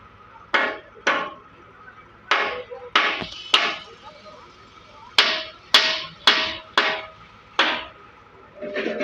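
Repeated hammer blows on metal, in runs of two to five strikes about half a second apart, each ringing briefly.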